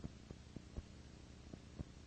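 Faint steady hiss and low hum of recording noise, with about six irregularly spaced soft clicks.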